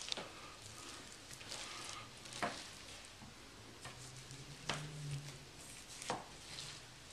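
Knife slicing and scraping through raw brisket fat: faint wet cutting sounds, with a few sharp taps of the blade against the cutting sheet, about two and a half, five and six seconds in.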